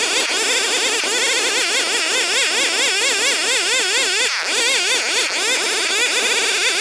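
Old two-stroke chainsaw cutting through Borneo ironwood, running loud and without a break, its engine pitch swinging up and down about four times a second as it loads and recovers in the cut.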